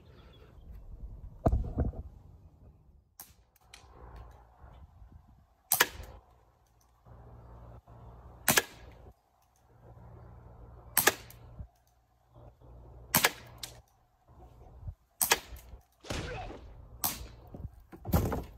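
CO2-powered airsoft Schofield revolver firing single shots, sharp cracks every two to three seconds, with quieter clicks between them.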